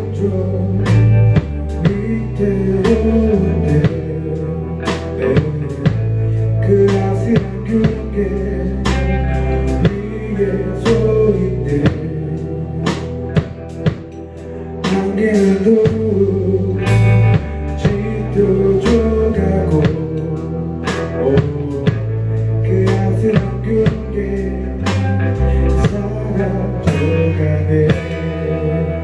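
Live indie rock band playing a song: electric guitars, electric bass and a drum kit, with a sung lead vocal. The band drops back briefly about halfway through, then comes back in.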